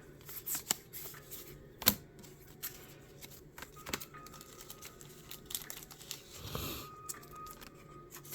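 Pokémon trading cards being handled and flipped through, with scattered light clicks and a brief rustle about six and a half seconds in.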